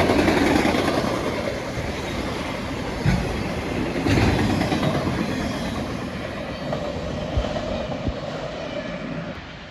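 CSX freight train's cars rolling past, wheels clattering over the rail joints with occasional knocks, the rumble slowly fading as the train goes by.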